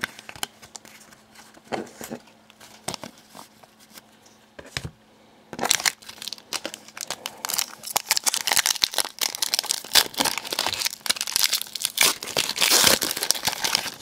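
Foil wrapper of a Panini Contenders hockey card pack crinkling and tearing as it is opened by hand: a few scattered crinkles at first, then dense continuous crinkling from about halfway in.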